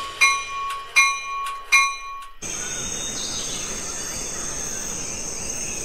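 A few short, ringing bell-like notes on one pitch. About two and a half seconds in, they cut to a steady chorus of crickets chirping, the stock comedy 'crickets' of a silent stage after an act.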